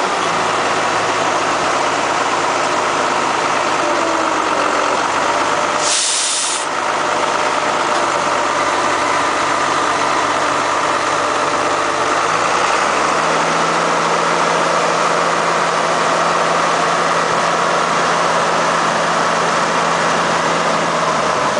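Heavy diesel engine running steadily, with a short, loud hiss of air about six seconds in. About halfway through, the engine speed steps up and holds at a higher pitch.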